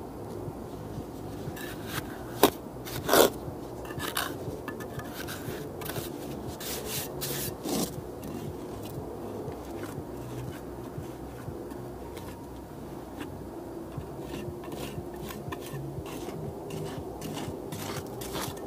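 Steel trowel scraping and rubbing mortar along a masonry block, an irregular run of short scrapes and clicks as excess mortar is cleared from the joint. Two louder strokes come about two and a half and three seconds in.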